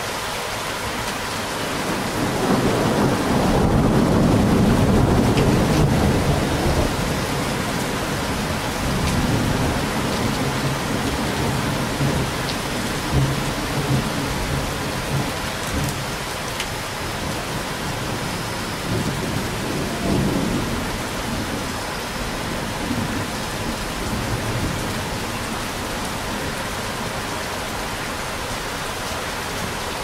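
A thunderclap over steady rain. A long, low rumble builds about two seconds in and stays loudest for several seconds. Weaker rolls and a few sharp cracks come and go after it, and it dies back to the steady hiss of the rain.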